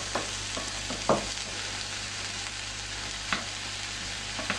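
Diced vegetables sautéing in a frying pan as they are stirred with a wooden spoon: a steady sizzle, broken by a few short knocks, the loudest about a second in.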